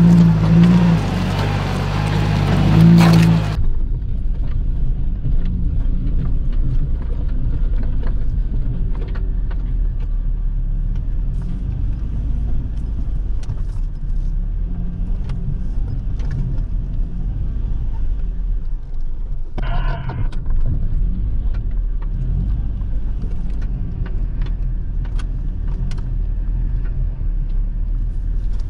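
Off-road 4x4's engine running at low revs while crawling over a rocky trail: a steady low rumble with scattered knocks and clicks. It opens with a louder, fuller passage that cuts off abruptly about three and a half seconds in.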